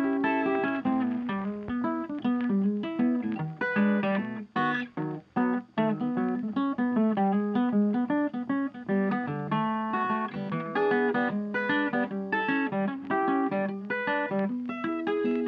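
Background music: acoustic guitar picking and strumming.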